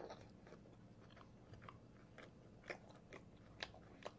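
Faint close-up chewing of a mouthful of pork belly: soft, irregular mouth clicks and smacks.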